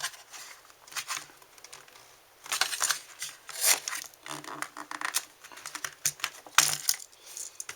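Small metal multi-tool being handled, giving irregular clicks and light clatters, with louder clusters of clicks about two and a half, three and a half and six and a half seconds in.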